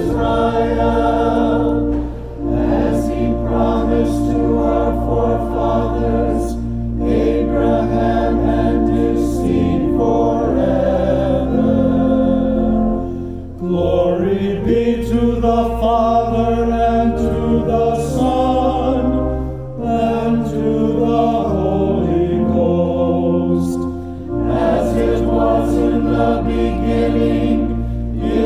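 A choir singing in several-part harmony over sustained low notes, in phrases that break off briefly every few seconds.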